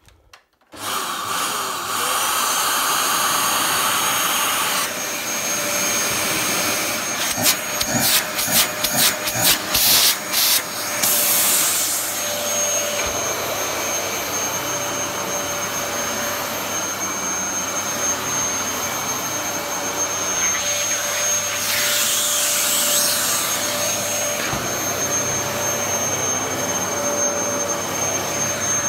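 Dyson DC14 Animal upright vacuum cleaner switched on about a second in and running steadily with a high whine. Between about 7 and 11 seconds its sound pulses rapidly up and down, then it settles back to a steady run.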